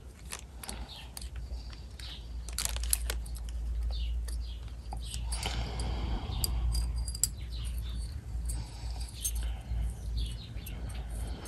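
Faint small metallic clicks and ticks as a thin steel oil-control ring rail is worked by hand into its groove on a new aluminium piston from a 250cc quad engine.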